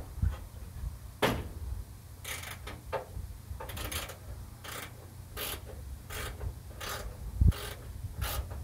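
Hand screwdriver driving a screw into the passenger side of a pickup's grille: about a dozen short, irregular scraping clicks, with a steady low rumble underneath.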